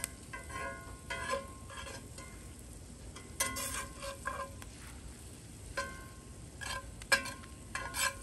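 Metal spatula scraping and clinking in a cast iron skillet as diced onions, jalapeños and bell peppers are pushed back and forth, each irregular stroke ringing briefly, with the vegetables sizzling as they sauté.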